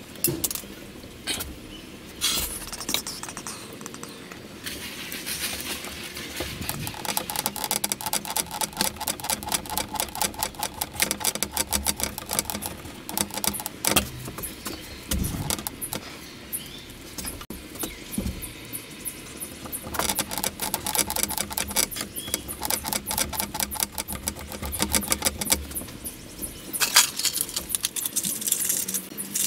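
Hand screwdriver driving the mounting screws of a plastic rocker-switch plate into a wooden wall panel: two long runs of fast small clicks, one through the middle and one near the end, with a few single knocks between.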